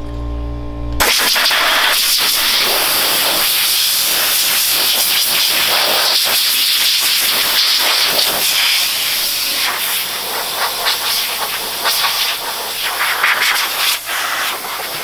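Air Shine Pro compressed-air wash gun with its red medium-pressure tip blasting a loud, steady hiss of air over the wet mini bike to blow it dry. The blast starts about a second in.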